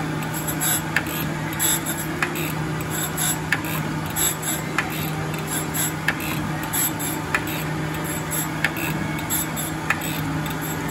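Jones & Shipman Model 1400 surface grinder grinding steel discs under flood coolant: a steady hum from the wheel spindle under a hiss of wheel and coolant on the work. A sharp tick comes about every second and a quarter.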